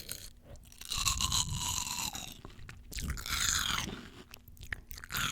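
Close-miked crunching and chewing of fresh fruit, in two longer bouts about a second in and about three seconds in, with small wet clicks between them.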